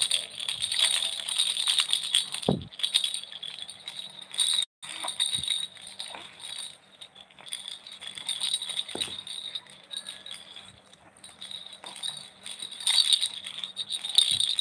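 Pink plastic baby rattle shaken in bursts, a bright jingling rattle that is loudest over the first few seconds and again near the end, quieter in between. A few dull knocks sound along with it.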